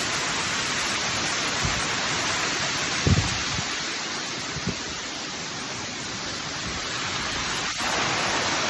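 Waterfall: a steady rush of falling water, with two brief dull thumps about three seconds and about five seconds in.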